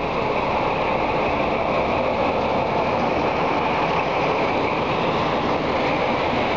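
Italian FS diesel locomotive's engine running steadily as the locomotive rolls slowly past at close range.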